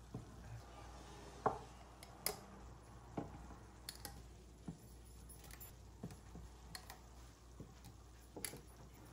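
Glass canning jars lifted with a metal jar lifter and set down one by one on a wooden counter: a series of light knocks and clinks, roughly one a second.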